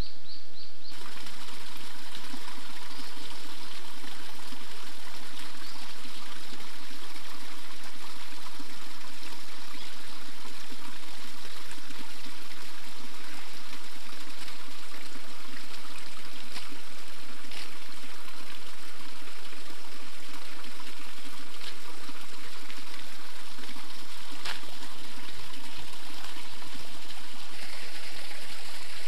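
Small waterfall trickling and splashing steadily into a pool, coming in suddenly about a second in.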